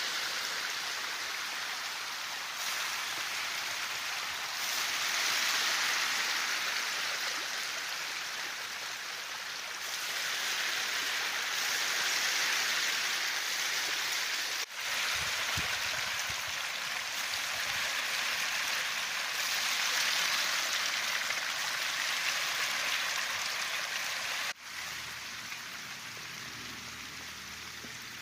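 Steady rushing water noise that swells and eases every few seconds, broken twice by abrupt cuts.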